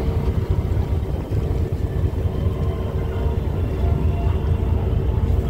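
Sightseeing icebreaker boat pushing through drift ice: a steady low rumble of the engine and the hull working through broken sea ice.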